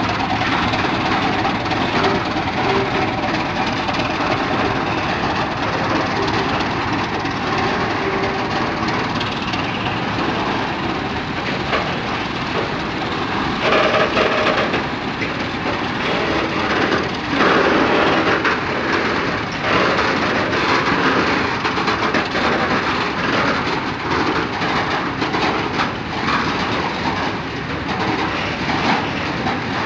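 Class 751/752 diesel locomotives working under load as they pull a loaded coal train away, their engines running steadily, with wheels clattering over rail joints from about halfway through.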